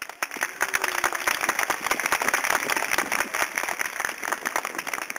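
Audience applauding, a dense patter of many hands clapping that starts sharply as the music ends and begins to thin out near the end.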